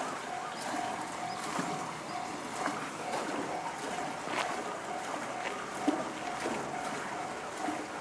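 Japanese railway level-crossing warning bell sounding the JR standard electronic tone: a short clanging note repeated about twice a second, the signal that a train is approaching. It runs over a steady background hiss, with one sharp knock about six seconds in.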